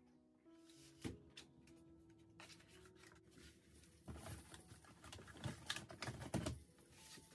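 Faint handling sounds of small desk items being tapped and set down, then a couple of seconds of towel fabric rustling close to the microphone, over soft background music with held notes.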